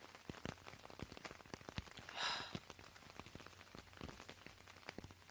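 Rain falling in scattered drops, tapping on an umbrella overhead, with one short breathy exhale about two seconds in.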